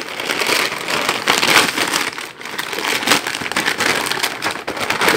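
Plastic courier mailer bag crinkling and rustling as hands pull it open, with a brief lull about two seconds in.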